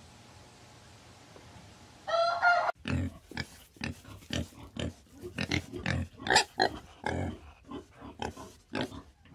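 Warthog grunting in a run of short, irregular grunts, two or three a second, starting about three seconds in. Just before, a brief pitched chicken call.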